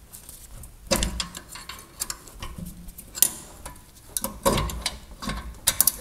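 A steel wrench prying against a seized rear brake caliper: irregular metallic clicks, knocks and short scrapes, with bunched clicking about a second in, around three seconds and near the end. The caliper is stuck fast on its bracket.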